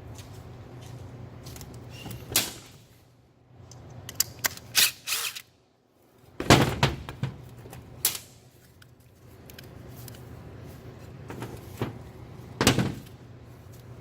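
Knocks and clatter of metal parts and hand tools being handled during the disassembly of a Volvo D13 EGR valve, several separate sharp hits with the loudest about six and a half seconds in, over a low steady hum.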